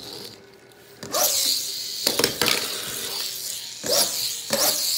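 Sharp plastic clicks and knocks from Lego toy pieces being handled on a hard tabletop, about half a dozen of them starting about a second in.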